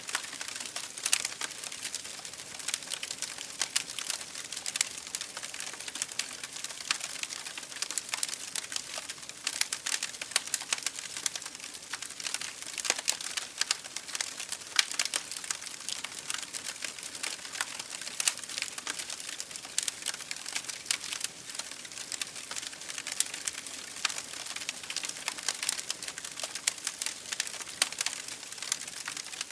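Wood fire burning in an open fireplace, with constant irregular crackling and snapping over a soft hiss.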